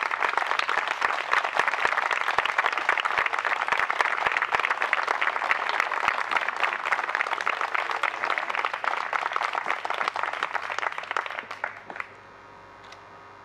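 Audience applauding, a dense run of many hands clapping that dies away sharply near the end.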